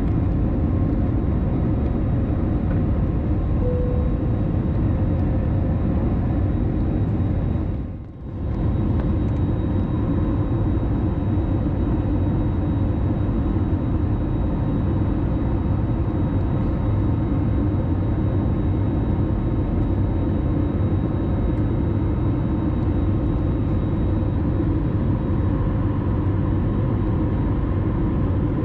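Cabin noise of a jet airliner climbing after take-off, heard from a window seat over the wing: a steady, deep rush of engine and air noise with faint steady whines above it. The sound dips briefly about eight seconds in, then carries on unchanged.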